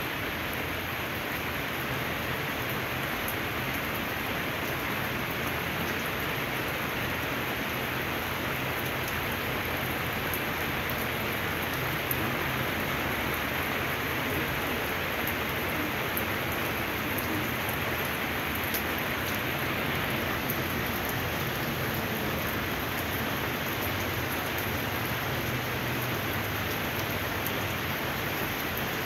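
Steady rain falling on a wet paved lot, an even hiss with many small drop ticks scattered through it.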